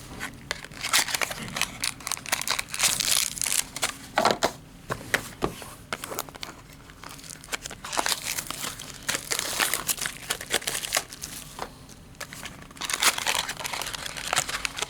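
Cardboard trading-card box and its mini boxes being handled, pried and torn open, with crinkling and scattered sharp clicks and scrapes.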